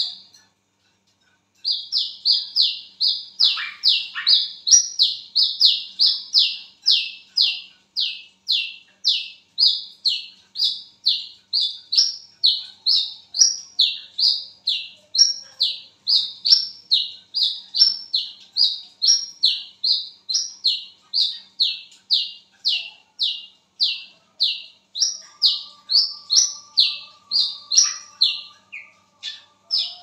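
Brown-throated sunbird (wiceh, kolibri kelapa) calling a long, rapid series of sharp, down-slurred chips, about two to three a second. The calling breaks off for about a second near the start, then runs on without a pause.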